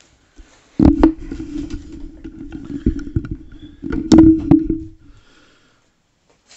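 A dropped microphone being handled: a loud knock about a second in, then rubbing and bumping noise on the microphone, another loud knock about four seconds in, after which it goes quiet.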